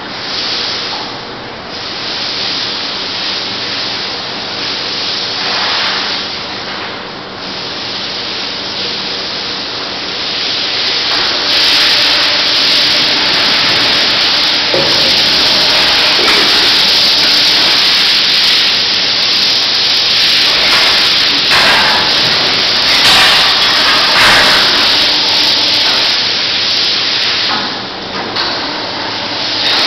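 Powered hand skinning knives running as a beef hide is taken off, giving a loud steady hiss over a faint low hum. The hiss grows louder and denser about a third of the way through.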